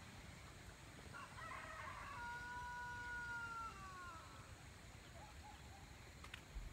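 A rooster crowing once, faint, starting about a second in: a rough opening, then a long held final note that drops in pitch at the end.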